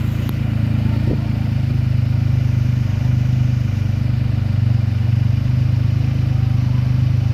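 Suzuki Carry DA63T mini truck's three-cylinder engine idling steadily through an aftermarket exhaust, a low, even pulse throughout.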